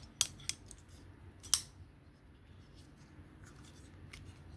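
Three sharp clicks from a Civivi Conspirator folding knife being handled, at about a quarter second, half a second and a second and a half in, with a few fainter ticks near the end.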